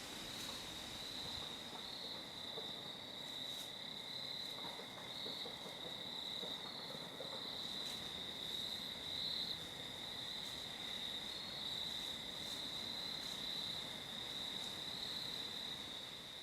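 Crickets singing in a steady, continuous high-pitched chorus over a faint outdoor hiss.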